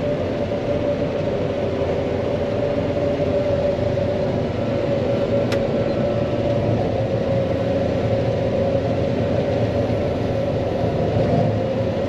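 John Deere 9500 combine running steadily while cutting soybeans, heard from inside the cab: a continuous drone with a constant whine over it. A single faint click comes about halfway through.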